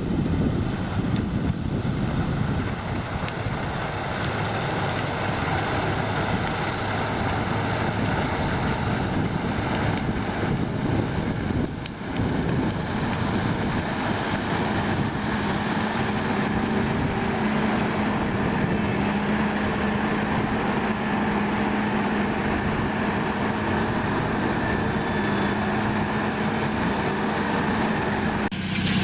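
Heavy vehicle engine running steadily, with a steady low hum joining about halfway through.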